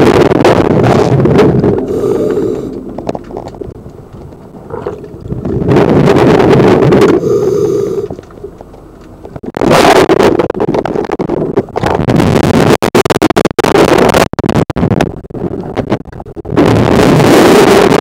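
A scuba diver breathing through a regulator underwater: loud rushes of exhaled bubbles that come and go several times, with quieter stretches between.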